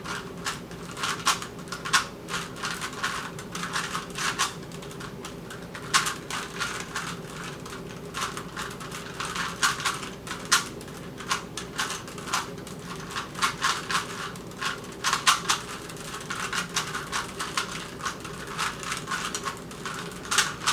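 Rubik's cubes being turned fast during a solve: a rapid, irregular clatter of plastic clicks as the layers snap round, over a faint steady hum.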